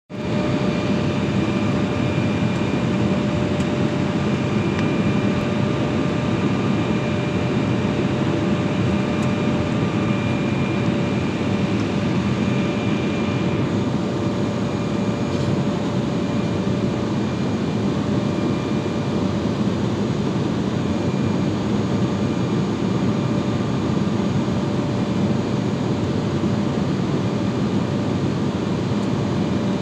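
Steady cabin noise inside an Embraer E175 jet airliner on approach: the rush of air and its twin turbofan engines, with a few faint steady whining tones over it.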